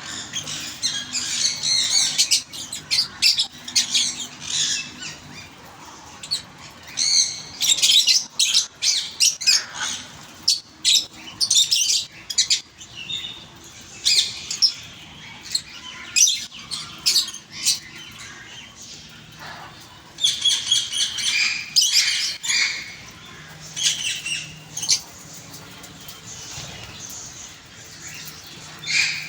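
Green pet parrots chirping and squawking in quick, high-pitched calls. The calls come in busy spells with quieter lulls, one around the middle and one near the end.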